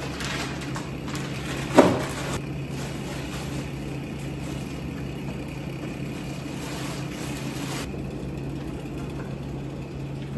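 Car engine running steadily with a low hum, and one sharp knock about two seconds in.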